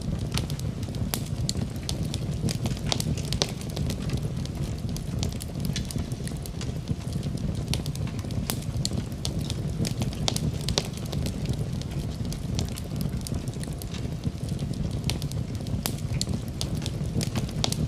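Wood fire burning in a fireplace: a steady low rumble of flames with frequent sharp crackles and pops scattered irregularly throughout.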